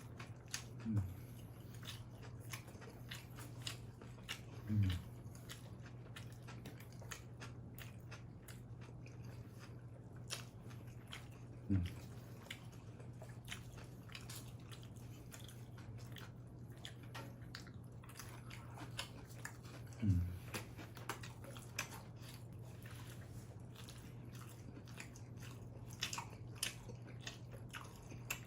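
Close-up chewing of pizza, with many small wet mouth clicks and crunches. Four short low sounds, louder than the rest, break in about a second in, near five seconds, near twelve and near twenty. A faint steady hum runs underneath.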